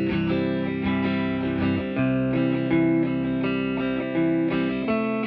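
Electric guitar played through a Poison Noises Spill V2 chorus pedal: held chords with a thick, shimmering chorus, the chord changing about once a second.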